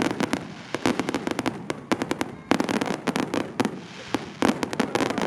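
Fireworks going off in rapid volleys of sharp cracks and pops, several clusters of dense crackling separated by brief lulls.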